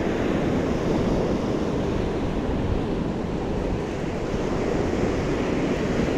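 Ocean surf washing onto the beach, with wind rumbling on the microphone; a steady noisy wash with no distinct splashes or clicks.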